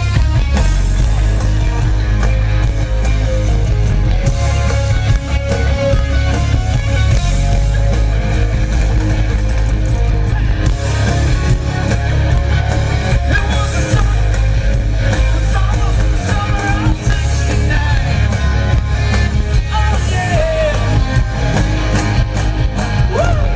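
Live rock band playing loud, with electric guitar, drums and a heavy, booming bass end, and a singing voice in the mix.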